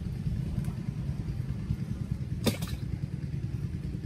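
Steady low rumble of an engine running nearby, with a single sharp click about two and a half seconds in.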